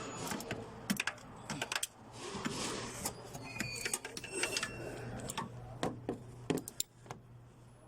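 Scattered metallic clicks and clinks of a wrench and socket working the spark plug out of the misfiring number 6 cylinder of a Chevrolet Suburban, over a steady low hum.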